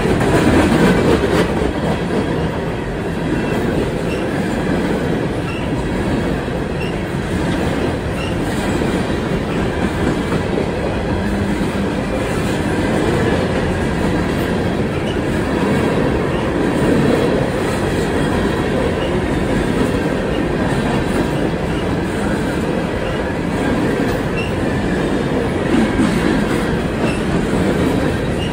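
Freight train of CSX open-top hopper cars rolling slowly past close by: a steady, loud rumble of steel wheels on rail, with clickety-clack over the rail joints and a faint wheel squeal.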